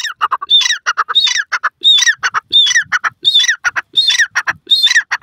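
Grey francolin (teetar) calling loudly and over and over. It repeats a ringing phrase about three times every two seconds, each phrase a high note sliding down followed by a quick run of short clipped notes.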